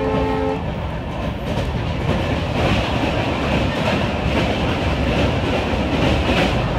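Passenger train running at speed, heard from inside a coach: a steady rumble with wheels clattering over the rail joints. The diesel locomotive's horn is still sounding at the start and cuts off about half a second in.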